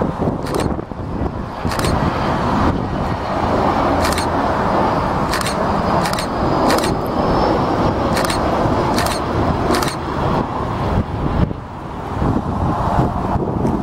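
Airbus A320's CFM56 jet engines running at approach power as the airliner passes close with gear down, a steady roar with a faint high whine in the middle. Brief sharp clicks come every second or so.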